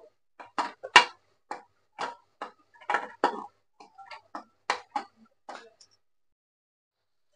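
Wooden spatula knocking and scraping against the side of a metal pressure-cooker pot while stirring chopped onions frying in oil: a string of uneven taps, about two a second, stopping near the end.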